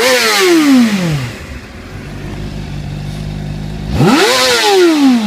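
Honda CBR600RR inline-four engine revved twice: a quick throttle blip at the start, the pitch falling back to a steady idle, then a second blip about four seconds in.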